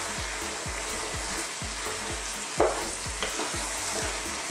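Chopped cabbage, potatoes and carrots sizzling in oil in a pot while being stirred with a wooden spoon, with a sharp knock about two and a half seconds in.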